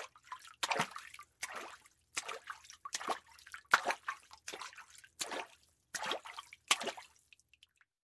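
Footsteps walking at a steady pace, about one step every three-quarters of a second, stopping near the end.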